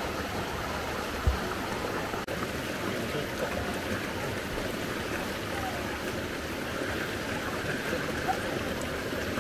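Clear river water flowing over stones, a steady rushing, with faint voices in the background and a single low thump about a second in.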